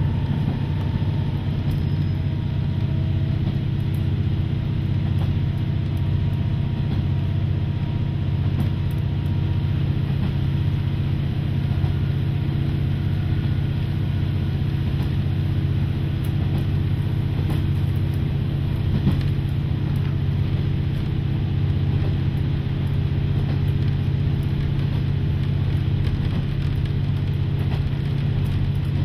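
KiHa 40 diesel railcar's engine running steadily under way, a constant low drone heard from inside the passenger car, with occasional faint clicks.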